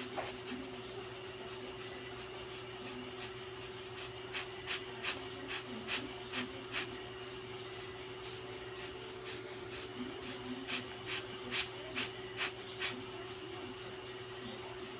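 Short scratchy rubbing strokes, about two or three a second, as a stick is worked against a small automatic-watch movement part held in tweezers, cleaning it. The strokes grow louder about four seconds in and fade near the end, over a steady hum.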